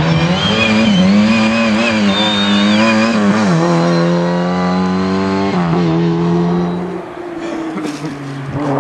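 Rally car engine revving up and down hard with high tyre squeals for the first few seconds, then holding steady revs with one short dip. It fades about seven seconds in.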